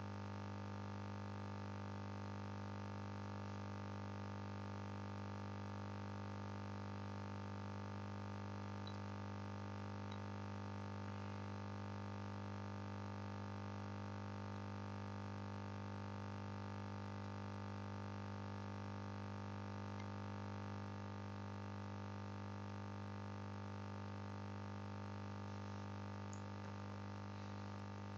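Steady low hum with a faint buzz of higher tones above it, unchanging throughout.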